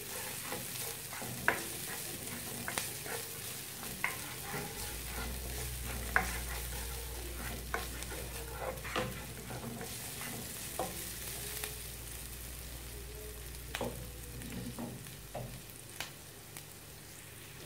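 Chopped onion and whole spices sizzling in hot oil in a nonstick frying pan, with irregular clicks and scrapes of a spatula stirring them.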